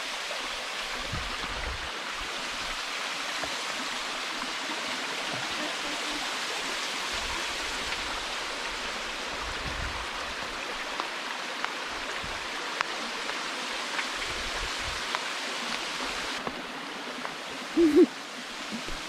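Waterfall rushing, a steady even hiss of falling water. A brief louder sound with a low hum-like pitch stands out near the end.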